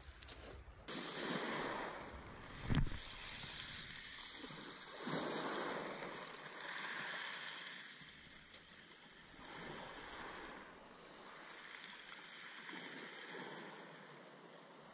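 Small sea waves washing in against the groyne and shingle, swelling and fading every two to three seconds. A single loud thump about three seconds in.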